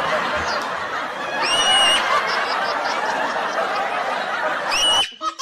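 People snickering and chuckling, with two short, high squeaks: one about a second and a half in and one near the end.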